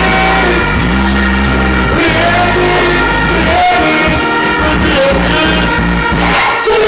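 Dancehall reggae music with a heavy, steady bass line and a voice singing over it.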